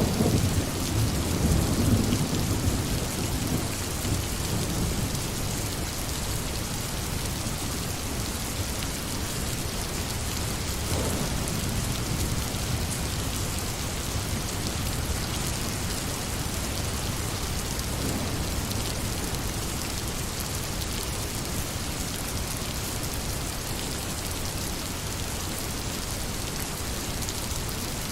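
Steady heavy rain falling on a surface, with a low rumble of thunder in the first few seconds that fades away.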